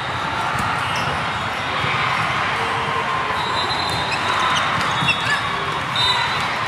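Busy volleyball tournament hall ambience: a steady din of many voices and play from many courts, with a sharp ball hit about five seconds in and a few faint short high tones.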